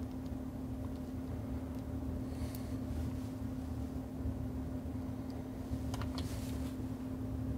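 A steady low hum with one constant tone, and a few light clicks about two and a half seconds in and again around six seconds in, from a power transistor being handled and clipped into a component tester's test leads.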